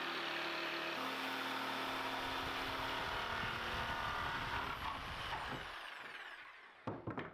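Corded jigsaw running and cutting a circular hole through a glued-up wooden panel. Its motor then winds down with a falling whine once switched off. A couple of short knocks come near the end.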